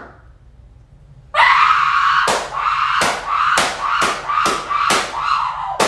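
A person screaming loudly, a rapid string of high yells broken every half second or so, starting about a second and a half in.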